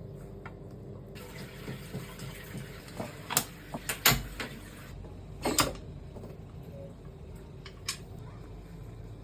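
Water running for a few seconds, with several sharp clinks and knocks of kitchen utensils or dishes, over a low steady hum.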